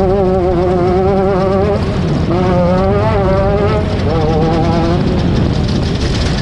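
Off-road race car engine running hard under a heavy rush of noise, its pitch wavering up and down. It drops away briefly about two seconds in, then climbs and falls again.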